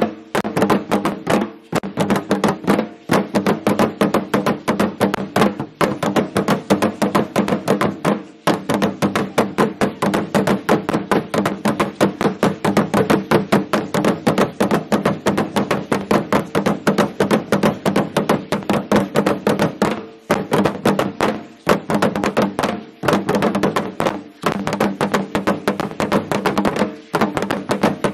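Aztec ceremonial dance music: a fast, steady drumbeat mixed with the shaking of the dancers' seed-pod ankle rattles, with short breaks every few seconds.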